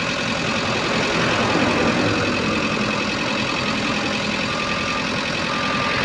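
Motor grader's diesel engine idling steadily at close range.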